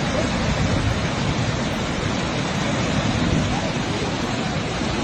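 Floodwater rushing, a loud, steady roar of noise.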